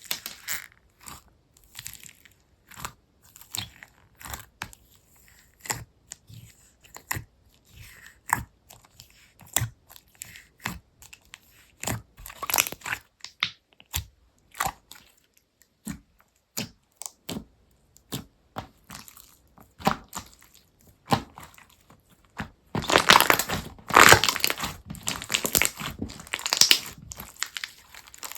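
Slime being squeezed and pressed by hand, giving separate crunchy crackles and pops about one or two a second. In the last few seconds it breaks into a louder, dense run of crackling.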